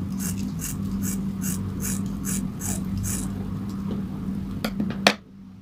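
Scissors snipping through a tied ponytail of hair, cutting straight across the ends in quick crisp snips, about four a second. The snipping stops about three seconds in, followed by a few more clicks and one sharp click near the end.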